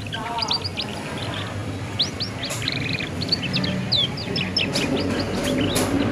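Young canary twittering in its practice song ('ngeriwik'), the stage at which a juvenile canary learns to sing. It gives a quick run of short, sharp chirps and sweeping notes, several a second, over a low background din.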